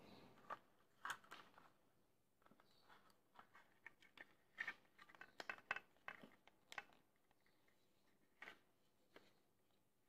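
Faint, irregular clicks and light clatters of the SG907 Pro drone's hard plastic body and arm being handled and worked apart by hand, clustered about a second in and again in the middle of the stretch.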